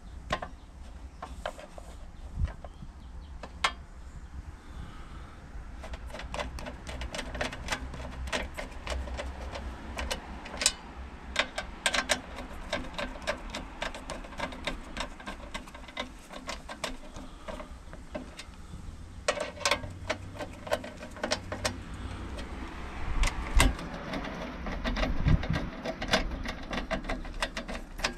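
Socket ratchet clicking in quick runs, driving in the bolts that hold a lawn mower's recoil starter cover, with a short pause partway through and a few dull knocks near the end.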